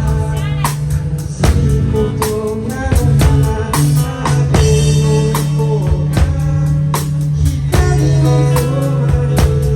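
Live band playing a song: a drum kit keeping a steady beat under bass and guitar.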